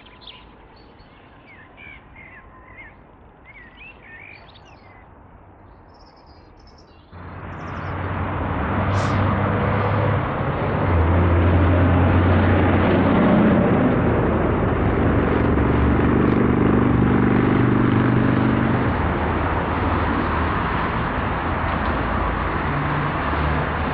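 Small birds chirping faintly. About seven seconds in, the sound cuts abruptly to a loud, steady rushing noise with a low, wavering hum underneath.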